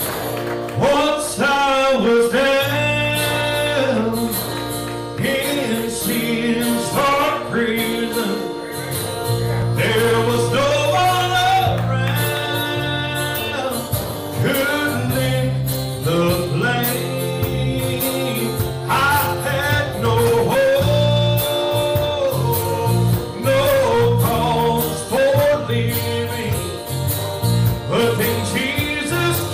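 A live gospel-country band playing: a man sings lead while strumming an acoustic guitar, backed by a second guitar, a drum kit and a steady bass line.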